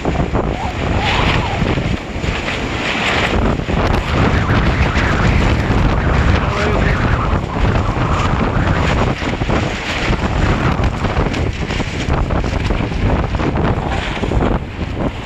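Strong gusting wind buffeting the microphone: a heavy, continuous rumble with rushing swells as the gusts rise and fall.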